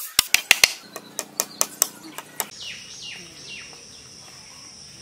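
Hammer striking bamboo in quick blows, about five a second, then fainter and more scattered. About halfway in a bird calls a string of falling chirps over a steady high tone.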